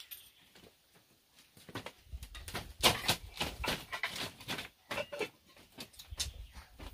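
Light knocks, thuds and rustles of a toddler getting up and walking barefoot across a woven mat, an uneven run of small impacts that is busiest from about two seconds in.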